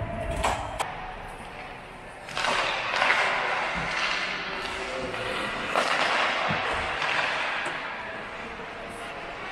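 Ice hockey play in an indoor rink: skate blades scraping and carving the ice, with sharp clacks of sticks and puck near the start and another knock about six seconds in.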